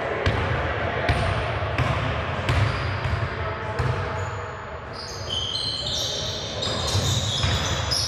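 A basketball dribbled on a hardwood gym floor, a steady bounce about every 0.7 s, followed about five seconds in by short high-pitched squeaks of sneakers on the hardwood as players cut and drive.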